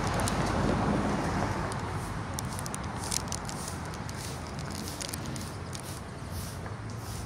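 Outdoor ambience: a car on a nearby road going by, its noise fading over the first two seconds. A low steady hum and scattered light crackling clicks remain.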